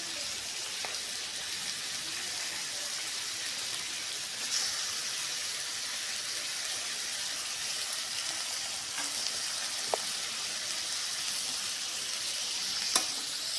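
Food frying in hot oil: a steady sizzle, with a few sharp clicks of a utensil against the cooking surface.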